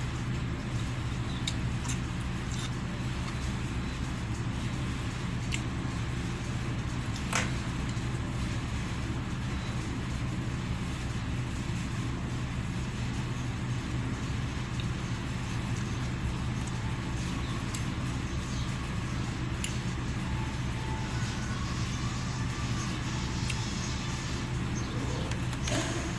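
A steady low mechanical hum, with a few faint clicks and one sharper click about seven seconds in.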